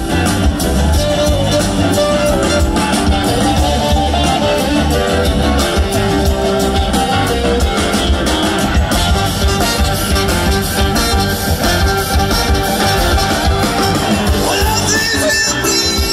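Live blues-rock band playing, with electric guitars over bass and drums, recorded loudly from the audience.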